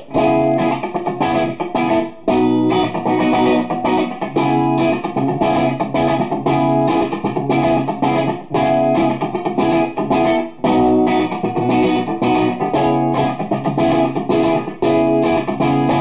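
Electric guitar, a Gibson Les Paul '57 reissue goldtop on its bridge humbucker, played through an amplifier: a chord riff picked in a steady rhythm, breaking off briefly twice, about two seconds in and around the middle.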